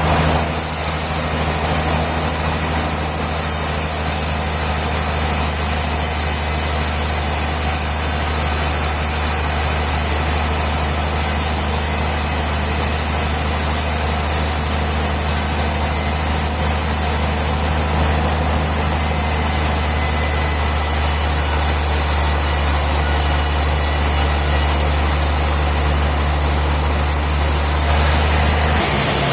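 Sawmill machinery running steadily: a constant low engine-like hum over an even hiss, with no change in load.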